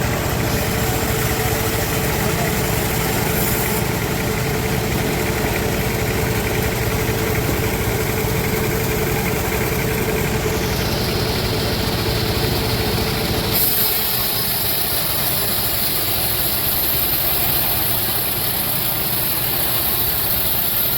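Sawmill machinery running steadily, a continuous engine-like hum with a steady whine. About two-thirds of the way in, the low hum and whine drop away and the sound turns thinner and hissier.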